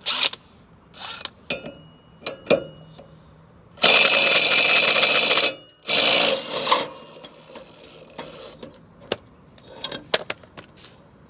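Cordless DeWalt impact wrench hammering a mower blade bolt loose on the spindle. It gives a loud burst of about a second and a half near the middle, a short pause, then a second shorter burst, with scattered clicks and knocks of the tool being handled before and after.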